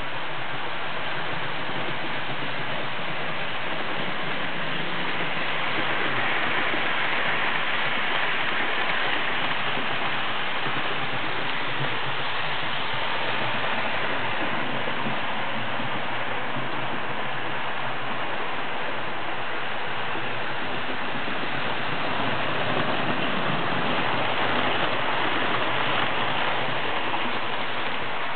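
Model trains running on the layout: a steady rushing rolling noise that swells a little twice, about six seconds in and again near the end.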